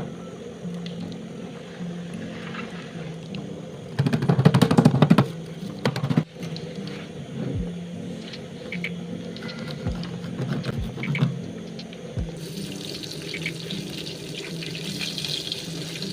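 Water running and splashing, as at a sink or basin, over soft background music. A loud, dense burst of noise comes about four seconds in and lasts about a second, and a steady hiss of running water starts near the end.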